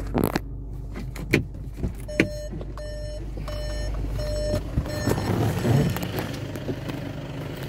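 Skoda Superb's in-car warning chime beeping four times in quick succession, among clicks and knocks of handling inside the cabin. A steady low hum cuts off about five seconds in, followed by rustling.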